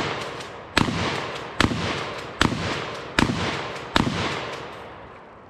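A 12 gauge shotgun fired five times in quick, even succession, about one shot every 0.8 seconds. Each sharp bang is followed by a fading echo, and the last one dies away through the final second and a half.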